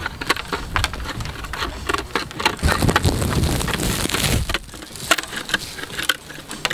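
Hand-held slate cutter biting through a roofing slate: a run of sharp crunching snaps as the edge is trimmed. Wind buffets the microphone with a low rumble about midway.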